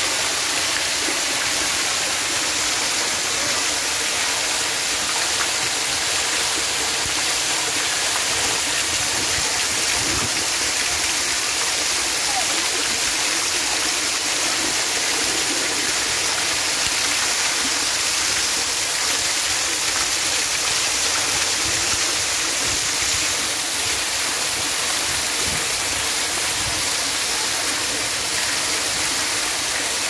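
Pool fountain spraying water that rains back down onto the shallow pool's surface: a steady, dense splashing and pattering of droplets on water.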